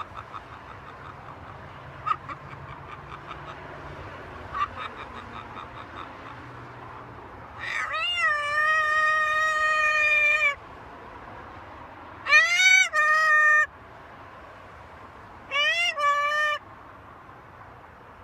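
Green-winged macaw giving three loud, drawn-out clear calls: one long call of about three seconds, then two shorter ones that rise and fall, a couple of seconds apart.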